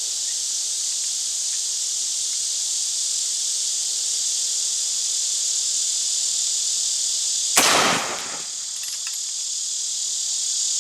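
A single shot from a reproduction 1847 Springfield Dragoon Carbine, a smoothbore black-powder muzzleloader firing a round ball, about three-quarters of the way in, its report dying away over about a second. A steady high chirring of crickets and insects goes on throughout.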